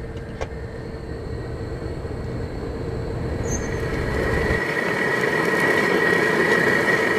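Halibut steak cooking on a gas grill: a steady sizzling hiss that grows louder over the first half and is loudest near the end. Before it, a low outdoor rumble cuts off about four and a half seconds in.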